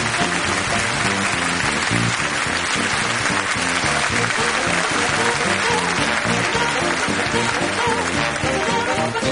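Show music with a steady beat, with audience applause swelling over it through the middle and easing off near the end.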